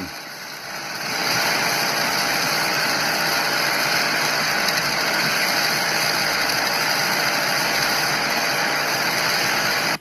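Flux-core wire burning in a welding arc from an ARCCAPTAIN MIG145PRO welder on electrode-negative polarity, a steady even crackle. It comes up to full level about a second in.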